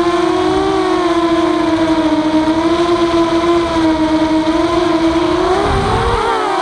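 Walkera F210 racing quadcopter's brushless motors and propellers whining steadily in flight, close to its onboard camera, the pitch wavering slightly. About six seconds in, the pitch splits and swoops as the motors change speed in a sharp bank toward the grass, with a brief low rumble.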